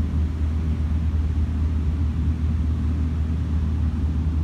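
Steady low droning hum of an indoor shooting range's ventilation, with no shots or other events.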